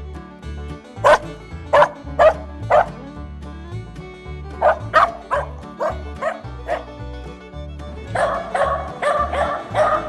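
Dog barking in short sharp barks: four spaced barks about a second in, a quicker run of six or seven around the middle, then a dense flurry of barks near the end. Steady background music plays underneath.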